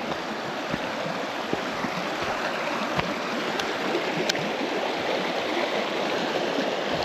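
River rapids rushing steadily, getting slightly louder, with a few faint clicks and knocks now and then.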